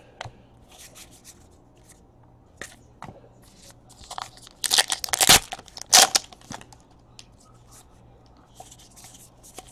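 Allen & Ginter trading cards being shuffled through by hand: soft scattered rustles and flicks of card stock sliding over card stock. A cluster of louder, sharper snaps comes in the middle.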